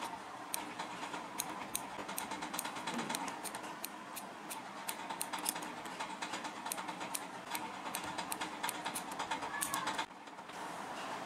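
Small scissors snipping thin plastic sheet in many quick, irregular clicks as a rolled dart cone is trimmed, over a steady background hum. The snipping stops near the end.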